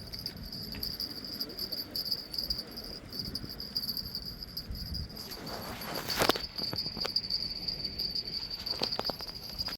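Insects chirring in a steady high-pitched drone, over low rumbling background noise. A sharp click or knock comes about six seconds in, and a few fainter clicks near the end.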